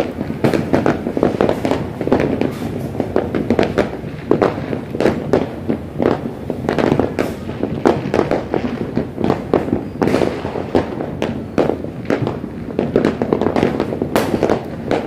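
Fireworks going off all over a city: a continuous run of overlapping bangs and crackles, several a second, some louder than others.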